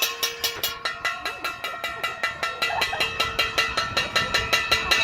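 Metal being banged in a fast, even rhythm, about five strikes a second, each strike leaving a ringing tone, as in pot-banging noise-making.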